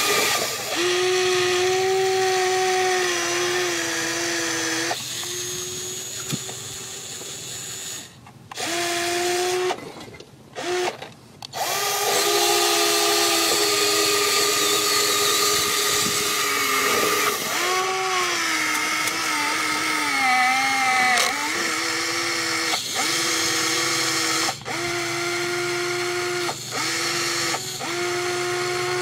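Electric motors and gearboxes of an RC model CAT 330D excavator whining as it works its boom, arm and tracks. The whine stops and starts several times, with a few short breaks and dips and swoops in pitch as the functions change.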